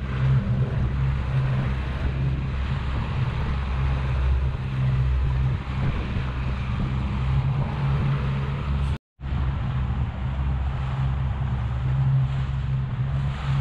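A 70-horsepower outboard motor running steadily at cruising speed, with water rushing in the wake. The sound drops out for a moment about nine seconds in, then carries on unchanged.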